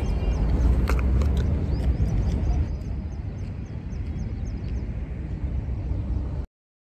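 Wind rumbling on a phone microphone outdoors, with faint high chirps over it and a single sharp tap about a second in. The sound cuts off abruptly into dead silence near the end.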